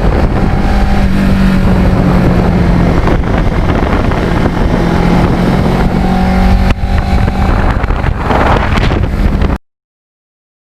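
Kawasaki Ninja 650R's parallel-twin engine running at a steady speed under way, with wind noise on the microphone. The engine note dips briefly about seven seconds in, and the sound cuts off suddenly near the end.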